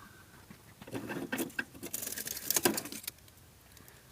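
Scratchy rattling and scraping of the plastic heater housing parts and the debris inside them being handled, lasting about two seconds from a second in.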